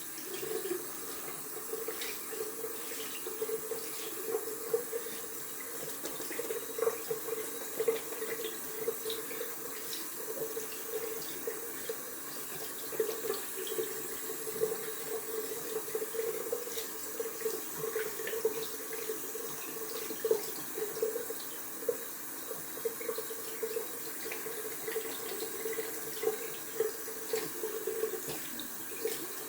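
Tap water running into a sink as a shaving brush is rinsed out under it, with small irregular splashes and drips throughout.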